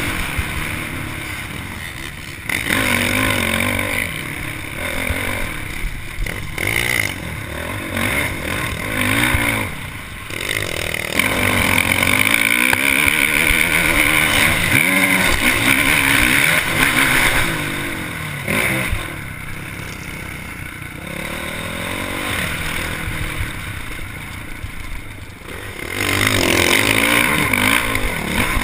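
Honda motocross bike engine heard on board, revving up and dropping off again and again as the throttle is worked, with wind and track noise underneath. The engine is loudest about halfway through and again near the end.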